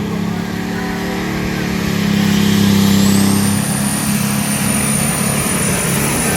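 Light superstock pulling tractor's engine running hard at steady high revs under load. A thin high whine rises in about three seconds in and holds over the engine.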